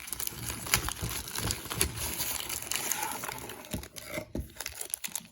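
Trading card packs being handled, their wrappers crinkling and rustling with many small clicks; it dies away near the end.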